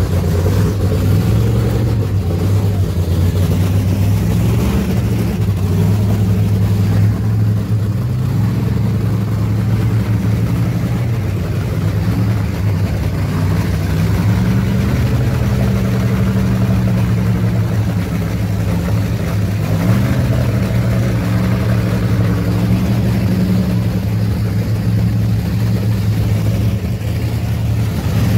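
Race car engine idling loudly and steadily, with small shifts in pitch and a brief rise in revs about twenty seconds in.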